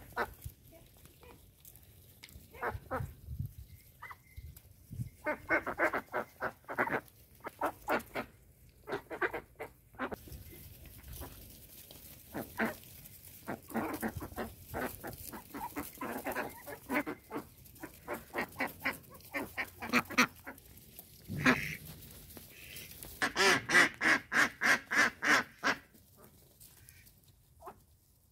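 Indian Runner ducks quacking in runs of short, rapid calls that come and go, with the loudest, densest run near the end.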